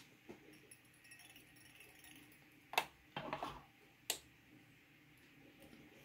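Faint handling sounds at a fly-tying vice while the floss butt is tied off and its loose end trimmed: a few sharp small clicks, one about three seconds in and one about four seconds in, with a brief patter of light clicks and rustling between them.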